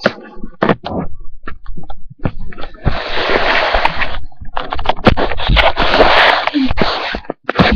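Rustling and scraping with scattered knocks and bumps, with two longer stretches of rustling about three and five seconds in.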